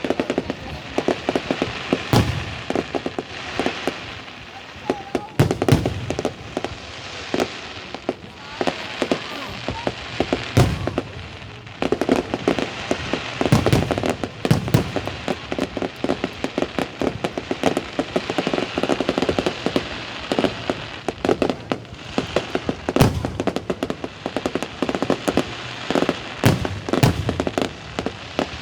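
Fireworks going off without a break: dense crackling and popping, with a deep boom of a bursting shell every few seconds.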